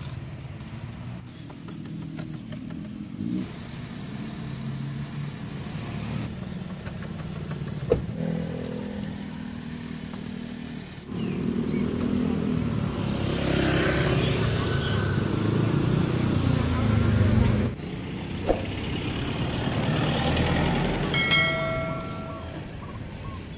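Roadside street ambience: motorcycle and other vehicle engines running nearby, with voices murmuring, louder in the middle. Near the end, a short electronic chime of a few pitched notes.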